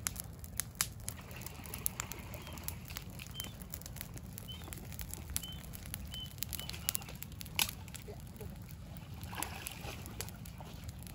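Fire of dry chili stalks and grass burning, giving sparse, irregular crackles and pops. A bird chirps briefly a few times in the middle, over a steady low rumble.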